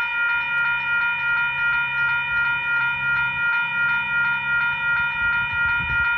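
Western Cullen Hayes electronic level-crossing bells ringing steadily in a fast pulsing ding, about three strikes a second, with one bell slightly slower than the other. A low rumble runs underneath.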